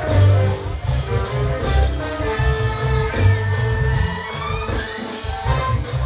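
Live band with a horn section of trumpet, tenor saxophone, trombone and baritone saxophone playing over a heavy bass and drum groove, the horns holding long notes in the middle of the passage.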